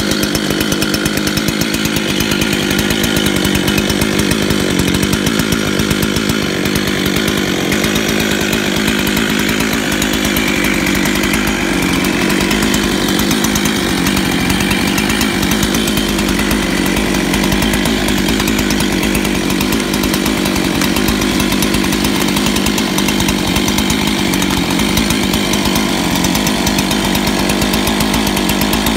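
Two-stroke Jonsered chainsaw engine idling steadily, with no revving.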